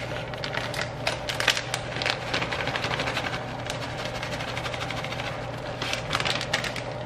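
Plastic bag of shredded cheddar cheese crinkling and rustling as it is handled and shaken out over a pot, with the shreds falling in, over a steady low hum.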